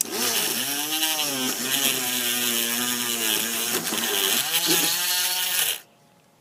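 Power drill with a 2 mm bit drilling a hole into model-railway scenery. The motor starts suddenly, runs for nearly six seconds with its pitch rising and falling as the speed varies, then stops.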